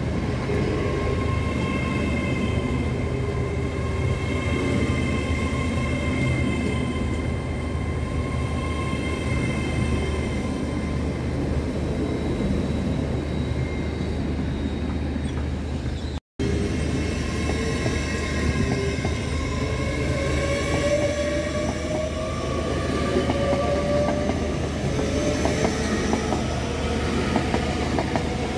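LNER Class 801 Azuma electric trains passing at speed with a steady rush of running noise. The first train draws away. After a brief gap about halfway through, a second train approaches with whining tones that glide in pitch as it comes past.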